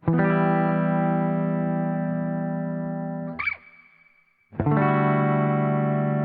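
Johnson JH-100 hollow-body electric guitar on its bridge pickup, clean tone through an amp. A chord is strummed and left to ring for about three seconds, then cut off with a brief squeak. A second chord is strummed about a second later and left ringing.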